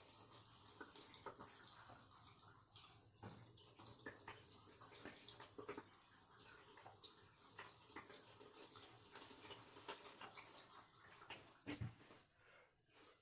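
Faint water trickling and dripping as it runs through a Candy washing machine's detergent drawer into the drum, with a soft knock near the end.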